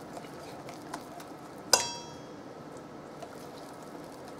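Wire whisk stirring a thick beer batter in a bowl, with faint ticks and one sharp clink, ringing briefly, a little under two seconds in as the whisk strikes the bowl.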